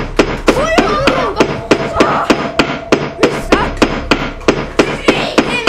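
Rapid, even banging, about four knocks a second, with higher pitched sounds rising and falling between the knocks.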